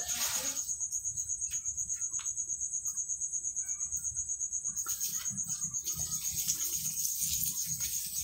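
An insect's high, rapidly pulsing trill, cricket-like and steady throughout, with a few faint clicks in the first half.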